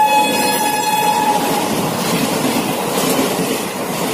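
A passenger train passing close at speed: the locomotive's horn sounds, dropping slightly in pitch as it goes by, and stops about a second and a half in. The rush and clatter of the coaches running past follows.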